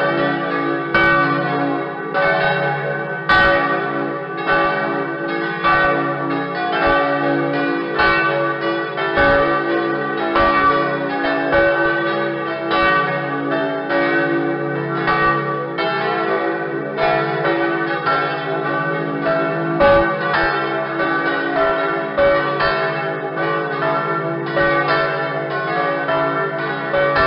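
Several church bells pealing together, struck in quick succession so their long ringing tones overlap in a continuous wash.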